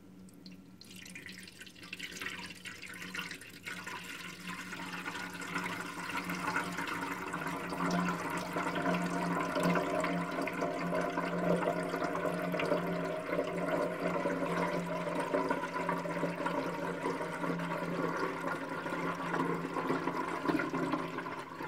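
Water being poured into the empty steel fuel tank of a Yamaha XT500, splashing and running inside it as the tank fills for a leak test of its new welds. It starts about a second in, grows louder over the first several seconds, then runs steadily.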